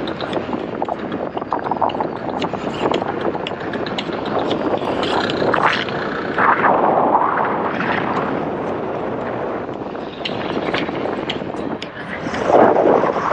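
Steady wind rush and motorcycle noise at high speed, heard from the rider's helmet, with many small clicks and a couple of brief swells.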